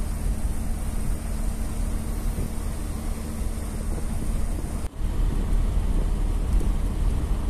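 Steady road rumble and wind noise heard from inside a moving vehicle, with a faint steady hum in the first part. The sound drops out briefly about five seconds in, then the rumble carries on.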